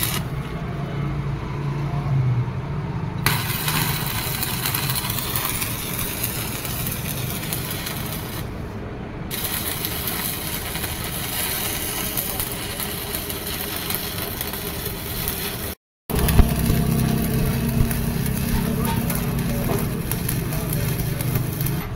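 Stick (arc) welding on a tractor's pedal shaft: the electrode arc crackles and sizzles steadily, with a steady low hum underneath. The crackle starts about three seconds in, breaks off briefly near nine seconds, and all sound cuts out for a moment around sixteen seconds.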